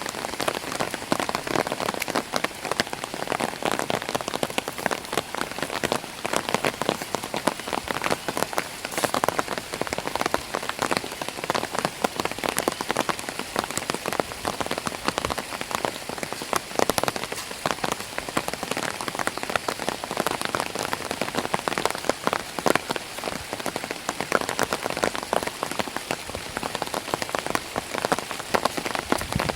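Raindrops pattering on an umbrella canopy held close overhead, a dense, steady stream of fine ticks.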